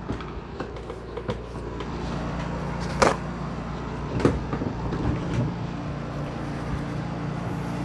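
Paper towel being pulled and handled: a few short rustling and crinkling sounds, the sharpest about three seconds in, over a steady low hum.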